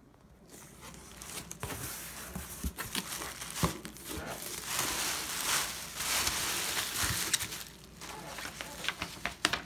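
A cardboard box being opened by hand and the plastic bubble wrap inside crinkling as it is pulled aside. Scattered sharp crackles and knocks run through it, and the crinkling is densest around the middle.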